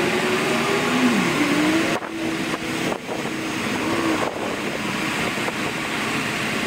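Air-suspension compressor of a 2011 Jeep Grand Cherokee Overland running as its Quadra-Lift air suspension raises the ride height, sped up: a steady hissing rush with a faint wavering hum.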